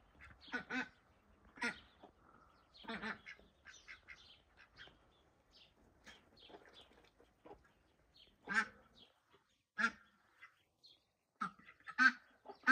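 Domestic ducks quacking, short calls scattered irregularly, some louder than others.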